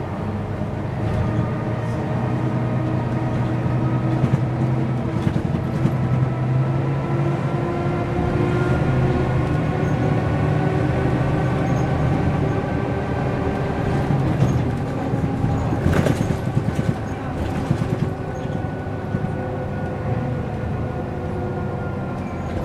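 Diesel engine of a Mercedes-Benz O405 N² city bus heard from inside the passenger cabin as the bus drives, its pitch rising slowly over the first third, holding, then falling toward the end. A brief burst of rattles and clicks comes about two-thirds in.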